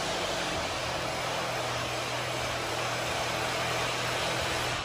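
Steady machine noise: an even rushing hiss over a low hum, cutting in abruptly and stopping near the end.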